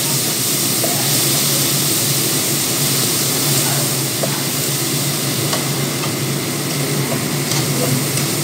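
A noisy kitchen appliance that the cook has switched on, running steadily with a low whirring hum and hiss. A few faint ticks sound over it.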